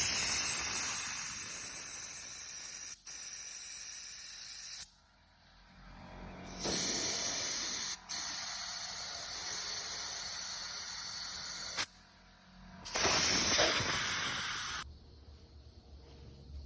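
Pressurised spray hissing in three long blasts of about five, five and two seconds, each cut off abruptly, with a brief break inside the first two.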